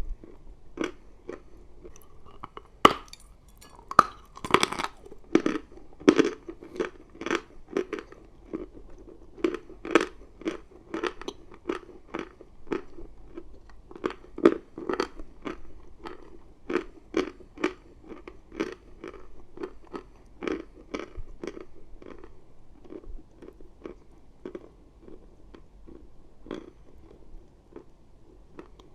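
Dry chalk being bitten and chewed close to the microphone, a crisp crunch with each chew at about two a second. A louder bite comes about three seconds in.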